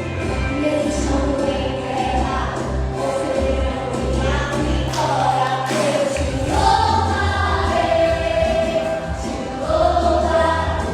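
Gospel vocal group singing in harmony over an instrumental accompaniment with a sustained bass line.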